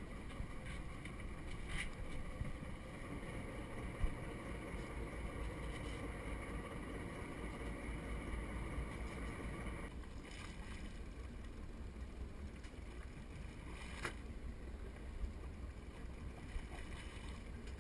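Fishing boat's engine idling on calm water, a steady low rumble, with a few sharp knocks on the deck.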